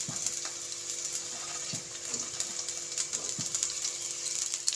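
Vegetables (carrot, beans, freshly added capsicum and shredded cabbage) sizzling in hot oil in a steel kadai: a steady hiss with scattered crackles.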